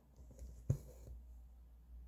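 Cross-stitch needle and thread being worked through fabric by hand: soft taps and a short swish of thread drawn through, with one sharper tap less than a second in, over a low steady hum.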